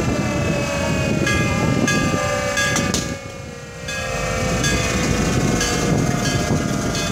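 An antique fire engine's mechanical siren winding down, its wail falling slowly in pitch over the rumble of the engine. The sound drops briefly about three seconds in.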